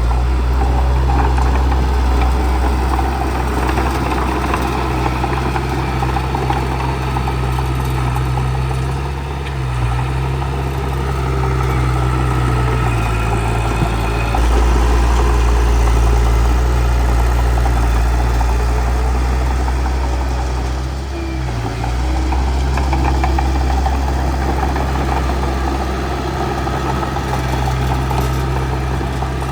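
Bulldozer's diesel engine running continuously under load, its low drone shifting pitch a few times as the load changes, with a dense mechanical clatter over it.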